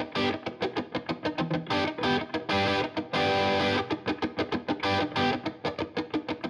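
Outro music: electric guitar with distortion, fast rhythmic picking broken by held strummed chords.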